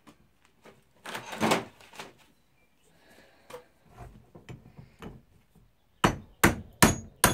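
A loud scrape about a second in, a few light knocks, then from about six seconds in a hammer rapping on metal in quick, even, ringing strikes, four of them, a little over two a second. The strikes are working the seized shackle of a heat-gutted Sargent & Greenleaf 831-B padlock loose.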